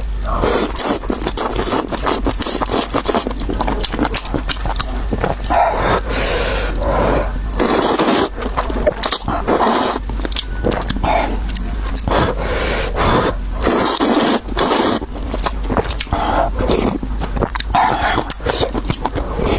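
Close-miked eating of noodles: chewing, slurping and wet mouth smacks, with dense irregular clicks throughout.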